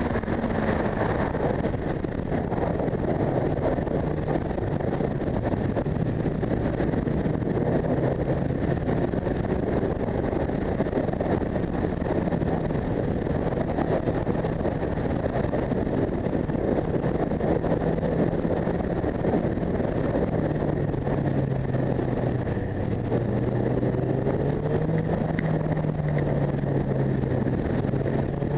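Motorcycle engine running under way, its pitch drifting up and down with the throttle and gear changes and rising near the end, under a steady rush of wind on the microphone.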